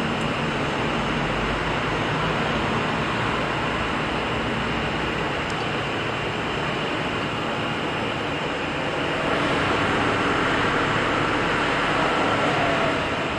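Steady workshop machinery noise, a dense even din without distinct strokes or tones, a little louder from about nine seconds in.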